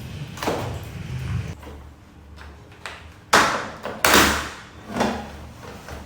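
A run of sharp knocks and scrapes from hard objects being handled. The two loudest come about three and four seconds in, with smaller ones near the start and about five seconds in.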